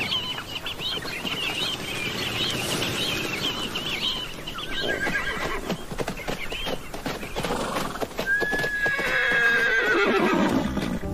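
Namib Desert horses neighing, with hoofbeats on sand: a short neigh about five seconds in and a long whinny about eight seconds in that falls steadily in pitch. Namaqua sandgrouse chirp over the first few seconds.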